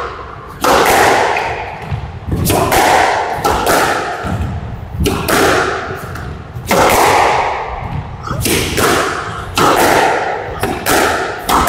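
Squash rally: a squash ball cracking off rackets and the walls about once a second, each hit ringing briefly around the enclosed court.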